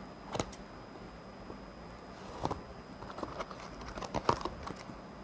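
Scissors cutting through a paper mailer envelope: a few sharp snips and paper crinkles, coming closer together in the second half.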